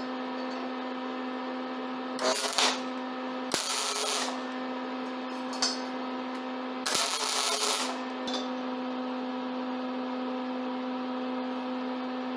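Three short tack welds from an arc welder: bursts of about half a second to a second, about two, three and a half and seven seconds in, the last the longest. They are tacking a steel handle in place, over a steady hum.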